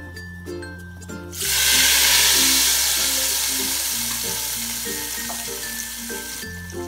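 Hot tarka (oil tempered with cumin seeds and dried red chilies) poured into a pot of kadhi, hitting the yogurt curry with a sudden loud sizzle about a second and a half in. The sizzle slowly dies away, then cuts off abruptly near the end, over light plucked background music.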